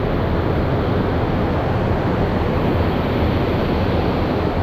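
Steady roar of rushing water from a river lock and dam, an even, unbroken noise.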